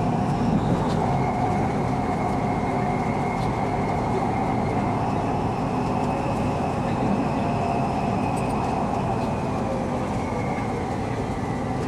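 Bangkok MRT Purple Line electric train running on the elevated track, heard inside the passenger car: a steady rumble with a faint motor whine that drops slightly in pitch in the second half as the train slows toward the next station.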